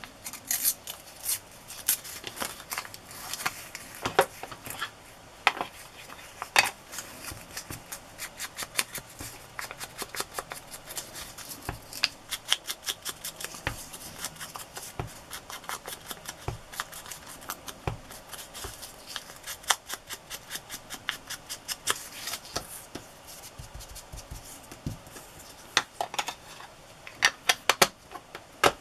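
Small paper scrap being torn by hand around a stamped image, a long run of short crackling rips, along with the clicks and taps of a wooden-mounted rubber stamp being handled on an ink pad. A few sharper snaps come near the end.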